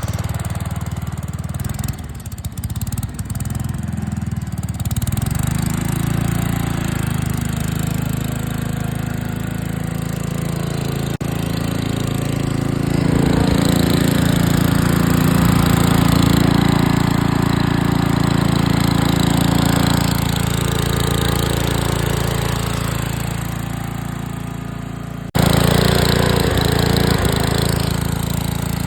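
Engine of an old riding lawn mower running steadily while it is driven, growing louder for a stretch in the middle. A sudden break near the end, after which it comes back louder.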